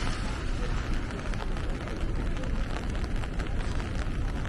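Rain falling on an umbrella overhead, a dense run of small drop ticks over a steady low rumble of city noise.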